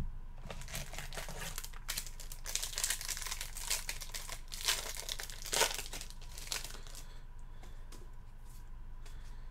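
Wrapping on a Topps WWE trading card blaster box crinkling and tearing as it is opened by hand. The sound is busy and irregular for about seven seconds, then dies down.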